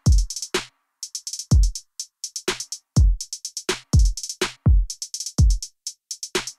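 Background electronic music: a drum-machine beat of deep kick drums that drop in pitch, about one a second, between quick runs of hi-hat ticks.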